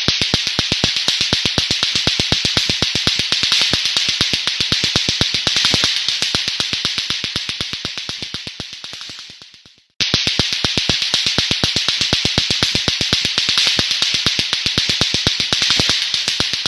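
Lato-lato clacker toy: two hard plastic balls on a string knocked together in a fast, steady run of clacks. The clacking fades out about ten seconds in, then starts again at full strength.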